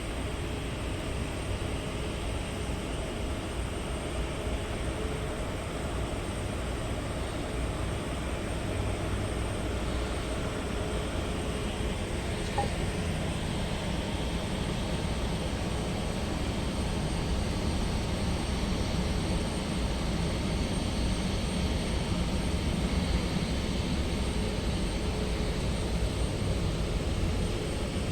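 Jet airliner engines running with a steady rumble that slowly grows louder over the second half.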